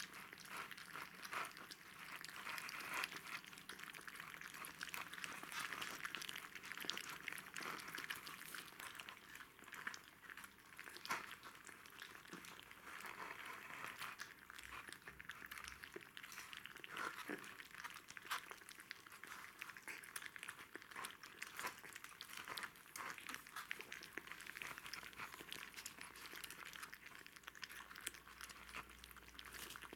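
Jack Russell Terrier puppies, about a month old, eating cottage cheese from plastic bowls: a constant, faint, irregular run of small wet smacks and chewing clicks.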